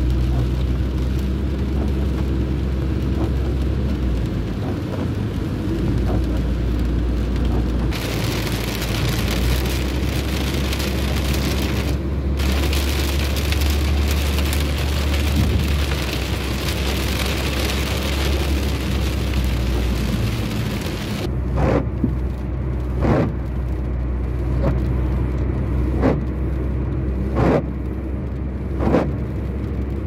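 Steady engine and road rumble heard from inside a car driving on a wet highway. A loud hiss of rain and spray on the car starts suddenly about a quarter of the way in and stops suddenly about two-thirds in. After that the windscreen wipers are heard sweeping the glass about once every second and a half.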